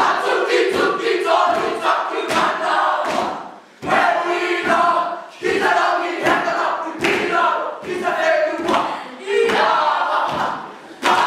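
A group of boys shouting a haka chant in unison, in short, strongly rhythmic phrases a little under a second apart, each phrase hit hard at its start.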